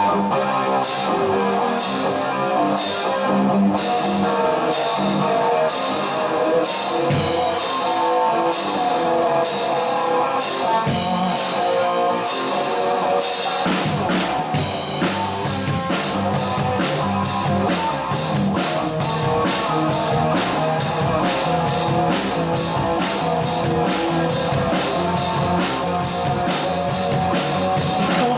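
Live rock band playing, drum kit and electric guitar, with a steady beat of cymbal strikes. The low end fills out about halfway through.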